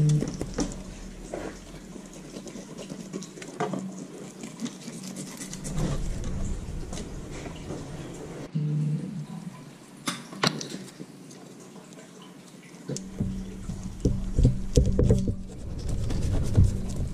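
Wet handling of a whole crappie and a fillet knife on a plastic cutting board: scattered light clicks and taps with dripping water. Music comes up in the last few seconds.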